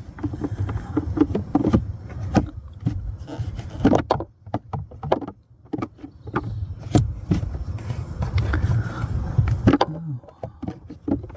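Irregular plastic clicks, knocks and scraping as a new cabin air filter is pushed and worked into its plastic housing behind the glovebox; the filter does not go in easily.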